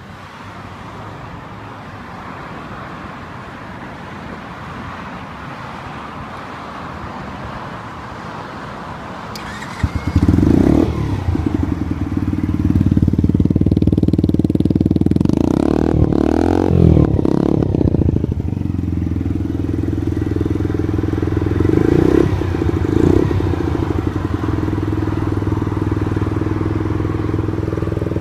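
SkyTeam Urban 50cc engine starting about ten seconds in, after a stretch of quieter rising noise, then idling. The throttle is blipped several times, with quick rises and falls in pitch, most of them in the middle and two short ones later on.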